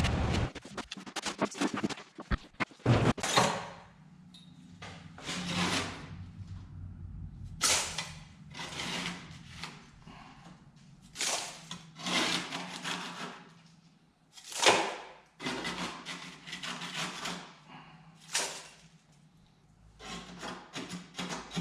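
Irregular scraping and rubbing strokes from hand work on the turret lathe, with a quick run of knocks and clicks in the first few seconds.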